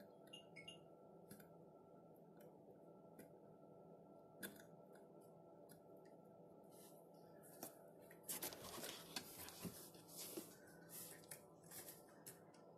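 Faint handling noise from wires being worked by hand: scattered small clicks, then from about eight seconds in a few seconds of rustling and crackling, over a low steady hum.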